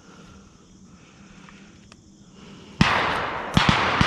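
Several 12-gauge shotguns fired in quick succession at a passing dove: after a quiet stretch, a loud shot nearly three seconds in, followed by three more shots close together in the last second, each with an echo.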